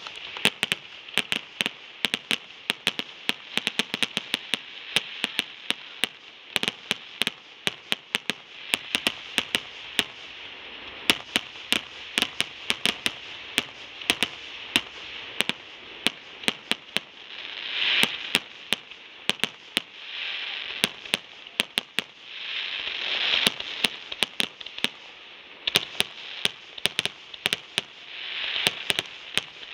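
Aerial fireworks shells bursting in a fast barrage: many sharp bangs in quick succession, several a second, over a steady hiss that swells louder a few times.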